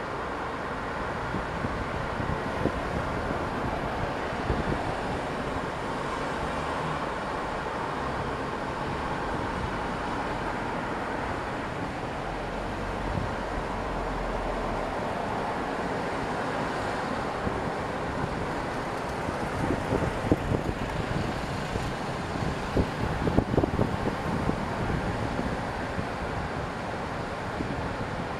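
A steady rumble of distant city traffic, with wind on the microphone. A cluster of short bumps comes about twenty seconds in.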